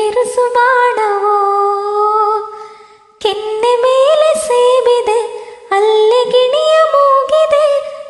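A woman singing a slow melody unaccompanied, in long held notes that glide gently in pitch, with a brief break about three seconds in and another a little before six seconds.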